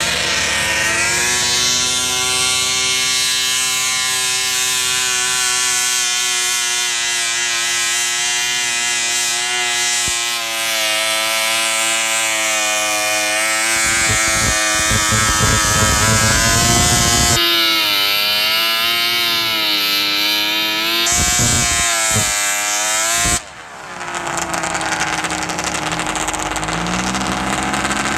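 Modified International Cub Cadet garden pulling tractor's engine running at high revs under load as it drags a weight-transfer sled, its pitch wavering as the pull goes on. About 23 seconds in the engine note drops away suddenly at the end of the pull, then it comes back running at a lower speed, the pitch rising slightly near the end.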